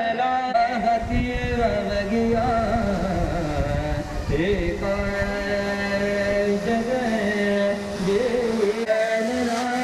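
Indian-style music: a steady drone under a wavering melodic line, in the manner of a chant.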